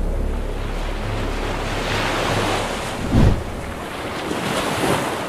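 Ocean surf washing, with wind noise, over a low steady hum that stops about two and a half seconds in. A dull low thump comes about three seconds in, and the sound starts to fade near the end.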